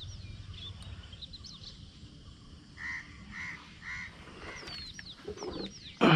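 Birds calling in the open air: many short falling chirps, with a run of three evenly spaced lower calls about halfway through. A sudden loud sound cuts in right at the end.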